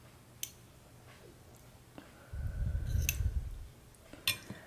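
Metal spoon and fork clinking lightly against a ceramic soup bowl, two faint clinks about half a second in and about three seconds in. A low rumble lasts about a second in the middle and is the loudest sound.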